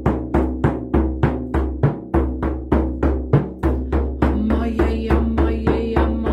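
Hand-held rawhide frame drum struck in a steady beat, about three strikes a second, each with a deep boom. A woman's wordless voice sounds over it, settling into a long held tone from about four seconds in.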